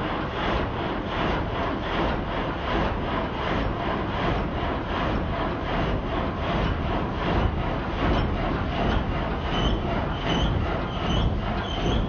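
A multi-blade frame sawmill (gang saw) cutting lengthwise through a log. Its reciprocating blades make a loud, even, rapid rhythm of sawing strokes. In the last few seconds a short high squeal repeats at even intervals.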